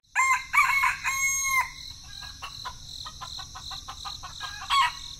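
A rooster crowing once, then a run of short clucking notes and a brief call near the end, over a steady high chirping of crickets.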